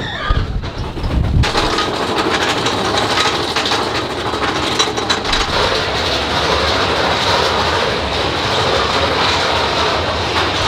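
Big Thunder Mountain Railroad mine-train roller coaster clattering along its track, a low rumble that turns into a loud, dense rattle about a second and a half in.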